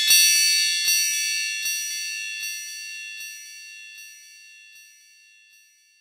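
Wind chimes ringing: a few light strikes, about one a second and each weaker than the last, while their high ringing tones slowly fade out.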